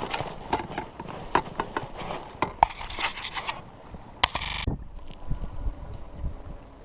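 Irregular clicks, knocks and scrapes of fishing gear being handled in a small boat while a fish is landed, with a short rasping burst about four seconds in.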